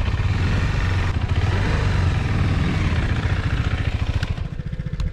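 KTM 390 Adventure's single-cylinder engine running at low speed, dropping near the end to a slower, pulsing idle as the bike slows.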